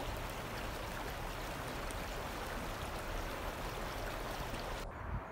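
Floodwater rushing through an open river sluice gate, heard as a steady hiss of moving water that cuts off abruptly near the end. The open gate is diverting high river water onto the floodplain to lower the river downstream.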